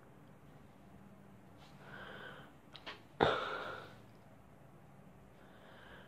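Mouth and breath noises: a soft breathy exhale, two small tongue clicks, then a sudden forceful puff of breath a little past three seconds in that fades within about a second.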